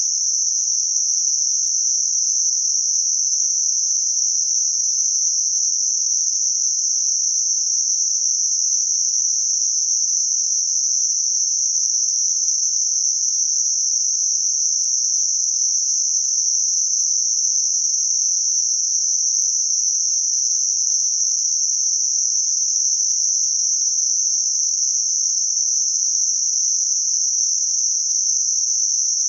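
Generated 6 kHz Gaussian narrow-band noise: a steady, unchanging high, thin hiss with nothing in the low or middle range. It is a tinnitus-masking sound-therapy noise.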